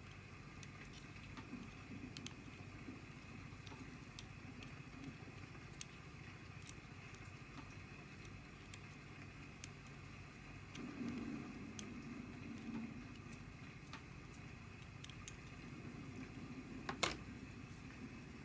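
Faint handling of a Zorro flip-top lighter, with scattered small ticks and one sharp click near the end, over a steady low hum.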